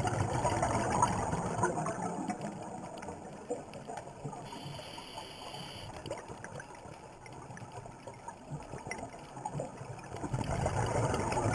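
Scuba regulator exhaust bubbles rushing and gurgling underwater. The sound swells about a second in, fades through the middle and swells again near the end, like successive exhalations.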